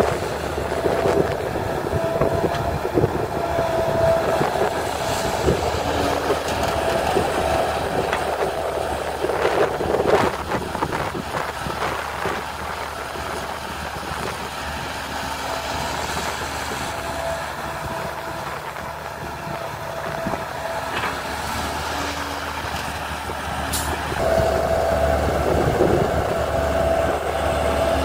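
Diesel engine and hydraulics of a CAT tracked excavator working as it digs soil and swings it toward a dump truck. The engine runs steadily under load, with a high hydraulic whine that comes and goes and is strongest near the end.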